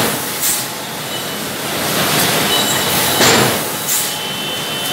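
An 800-ton Hasenclever friction screw press running: loud steady machine noise with high thin squealing tones, and two short, louder noises about half a second and about three seconds in.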